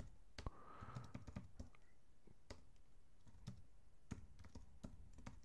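Faint, irregular keystrokes on a computer keyboard as a command is typed.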